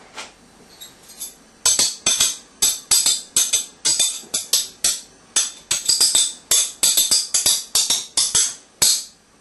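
Jingling percussion music, tambourine-like, in a steady rhythm of about three to four strokes a second. It starts a little under two seconds in and stops just before the end.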